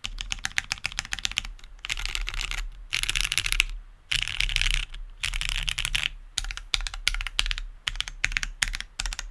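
Typing on a TGR 910 V2 ME mechanical keyboard with lubed Cherry MX Hyperglide switches, GMK keycaps and a top-mounted aluminum plate. It is a quick run of keystrokes with several stretches of very rapid, near-continuous keypresses and short pauses between them.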